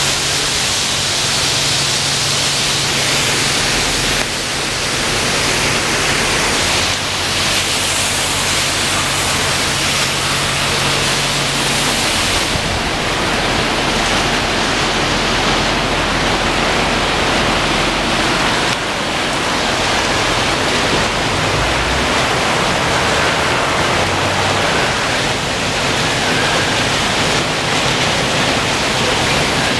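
Conveyor car wash tunnel running: water jets spraying hard with a steady hum from the pump motor, a continuous rushing hiss. About twelve seconds in the hum stops and the hiss eases, leaving water splashing and the rotating brushes scrubbing the car.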